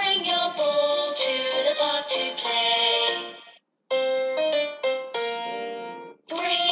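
Children's phonics song for the letter b sound, sung over a keyboard backing. The music stops for a moment about halfway through, then carries on.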